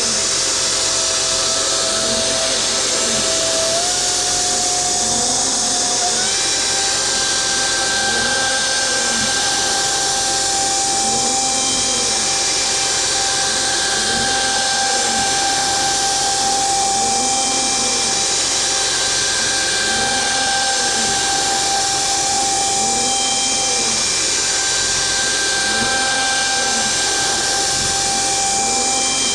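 DIY CNC router milling, its spindle running steadily. Over it a motor whine rises and falls about every two seconds, and the steady tone steps up in pitch twice early on.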